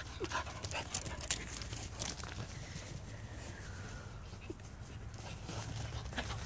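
Dogs chasing and play-wrestling on grass: quick scuffles and paw thumps, busiest in the first two seconds, with a couple of faint short squeaks.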